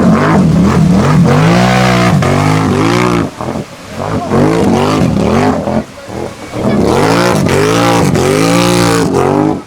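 Off-road vehicle engine revving hard, its pitch surging up and down in quick repeated swells as it is throttled through deep mud. It dips briefly twice, about a third and about two thirds of the way in.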